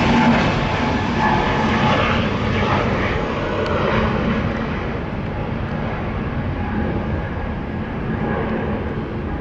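Jet engines of an easyJet Airbus A320neo, a steady roar that fades gradually as the airliner departs, its high end dropping away.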